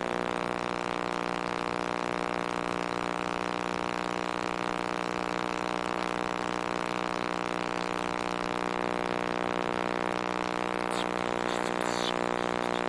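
Microwave oven running: a steady, strange vibrating hum with many overtones. A few short sharp crackles come near the end.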